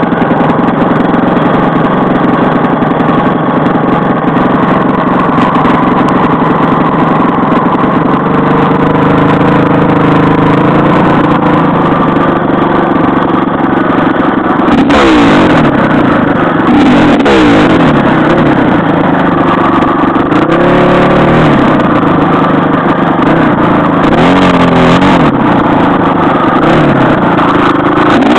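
Dirt bike engine running under way on a trail, fairly steady at first, then rising and falling in pitch several times in the second half as the throttle is worked.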